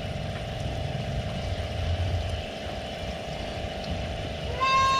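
A boat motor running steadily on the water, a continuous low hum with a steady drone. Near the end a high-pitched call comes in and holds.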